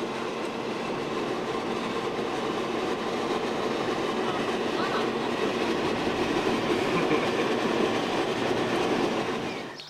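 Steady rumble of a moving vehicle, heard from inside it as it travels along, cutting off suddenly near the end.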